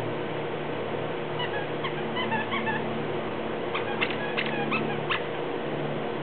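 Rubber squeaky dog toy squeaking as two Samoyeds tug and chew on it: a run of short high chirps, then about a second later a quicker series of sharp squeaks. A steady low hum runs underneath.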